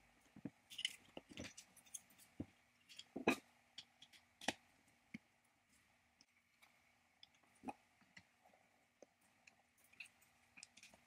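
Sparse small clicks and knocks of metal engine parts being handled and screws being turned into a small engine's aluminium fan housing with a screwdriver. The two loudest knocks come a little after three seconds in and at about four and a half seconds.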